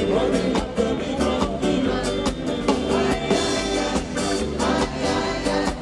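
Live rock band playing loudly, with electric bass guitar, a drum kit keeping a steady beat and a male singer.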